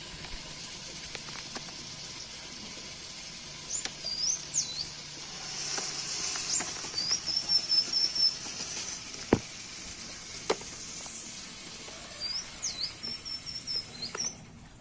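Orange-headed thrush (anis kembang) singing: three bouts of quick high whistled notes and short trills, over a steady high hiss. A couple of sharp clicks come midway.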